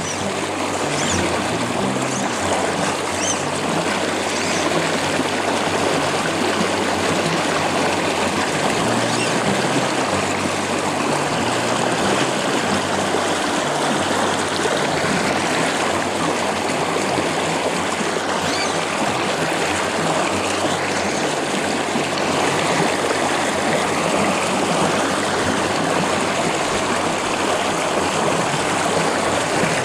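Fast river current rushing and splashing steadily where it breaks around the legs of a wading angler, close to the microphone.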